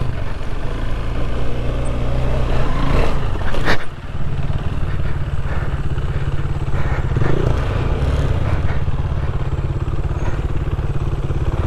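KTM 390 Adventure's single-cylinder engine running steadily as the bike is ridden, with a brief dip in the sound about four seconds in.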